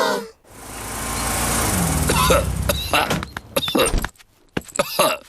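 A cartoon car engine rising as it drives up, followed by a run of coughs from a sick character.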